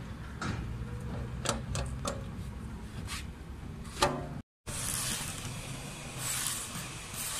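Metal primer bucket and its hinged steel lid being handled, giving about half a dozen sharp clicks and clanks, the loudest near the four-second mark. After a short break, a steady rough hiss follows.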